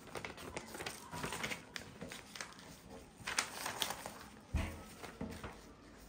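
Paper pages of a spiral-bound drawing book rustling and crinkling as they are handled, with a dull low thump about four and a half seconds in.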